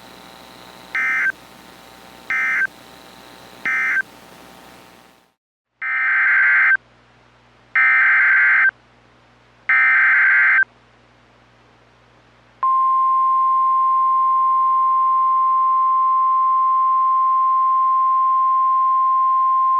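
Emergency Alert System / NOAA Weather Radio SAME data tones: three short end-of-message bursts, then after a short pause three longer screeching header bursts that mark the start of a new alert. From about 12.5 seconds in, a steady single-pitch 1050 Hz warning alarm tone follows.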